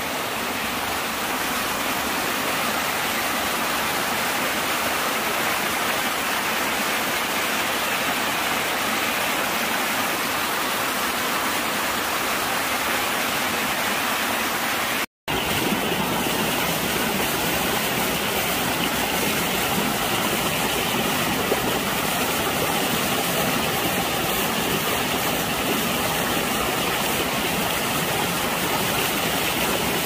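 Steady rush of flowing water, a stream or small waterfall, broken by a split-second gap about halfway through, after which it comes back a little deeper.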